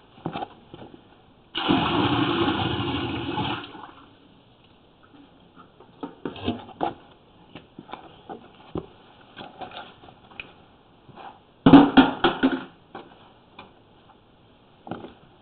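A rush of water poured into a drain, starting suddenly and tapering off over about two seconds. Scattered knocks follow, with a second shorter, louder burst of noise and knocks near the end.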